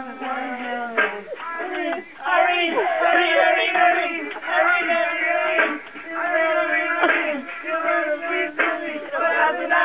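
Young men's voices singing together, loud, with long held notes and short breaks between phrases.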